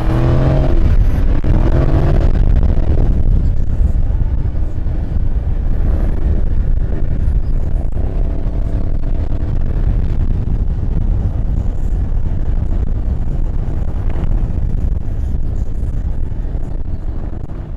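Motor vehicle running with a loud, steady low rumble and a few wavering changes in pitch, fading near the end.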